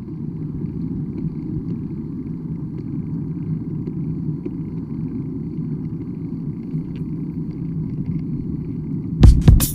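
A steady low rumble, like travel noise. Just before the end, loud sharp beats of music cut in.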